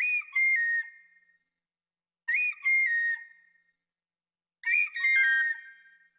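Three short whistle-like phrases, about two seconds apart, each a quick upward slide followed by a few stepped falling notes.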